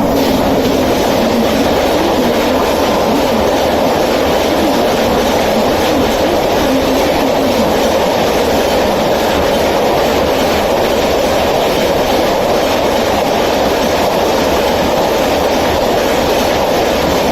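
Rajdhani Express, a coach train hauled by an electric locomotive, running through a station at speed: a loud, steady rush of wheels and coaches on the rails that does not let up.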